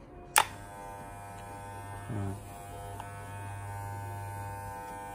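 Corded Wahl Super Taper hair clipper with a magnetic motor, switched on with a sharp click about half a second in. It then runs with a steady, even buzz.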